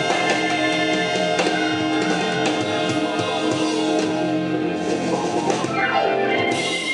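Closing bars of a Mandarin pop-rock song played back on a hi-fi system, a Luxman CL-350 preamp driving a McIntosh MC7270 power amplifier: a full band with drums and guitar holds a final chord, with a falling slide near the end.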